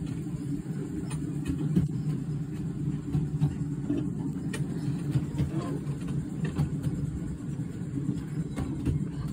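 Miniature railway train running along the track, a steady low rumble with occasional sharp clicks.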